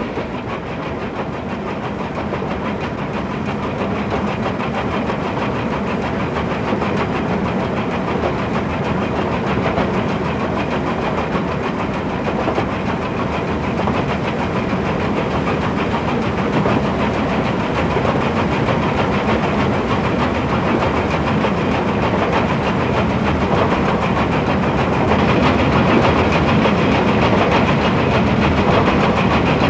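JNR C62 express steam locomotive running at speed: a steady, dense mix of exhaust and wheel-on-rail clatter, growing slowly louder.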